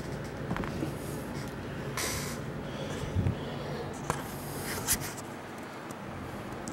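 Handling noise of a camera and objects being moved about on a desk: scattered small knocks and clicks, a short hiss about two seconds in and a sharper click near the end, over a low steady hum.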